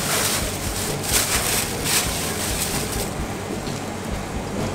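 Plastic bag rustling and crushed ice shifting as a whole pike is handled and bagged, in hissing bursts over the first three seconds, then duller, over a steady low hum.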